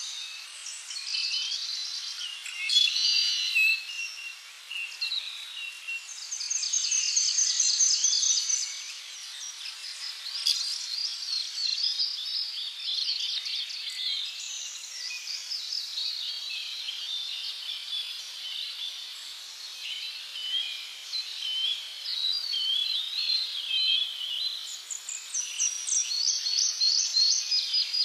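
Several birds chirping and trilling at once in a dense chorus, with rapid high repeated notes overlapping throughout and a faint hiss beneath.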